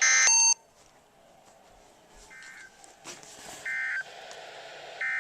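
NOAA Weather Radio's SAME digital data bursts: short buzzy electronic squawks. A loud burst comes at the start, then quieter ones about every second and a half. This is the end-of-message code that closes the weekly test broadcast.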